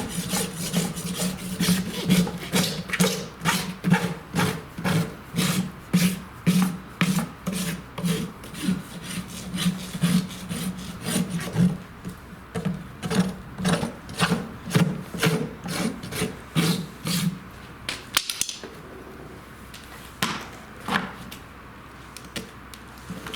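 Farrier's rasp scraping a horse's hoof wall in rhythmic strokes, about two a second. The strokes stop about two-thirds of the way in, and a few more come a little later. The wall is being rasped clean so that acrylic glue will stick for a quarter crack repair.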